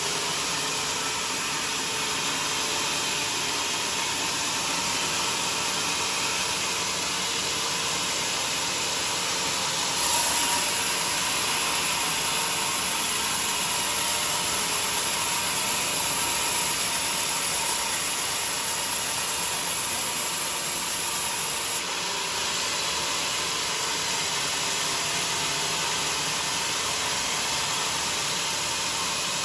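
Homemade sawmill running steadily, with a harsher, slightly louder stretch from about a third of the way in until about three-quarters through.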